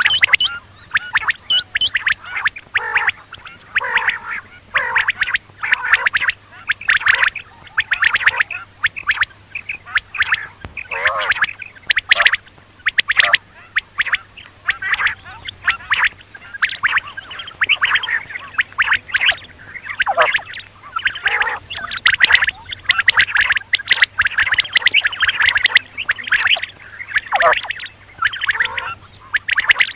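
Quail calling over and over in quick short notes, many calls packed closely together, with a faint steady low hum underneath.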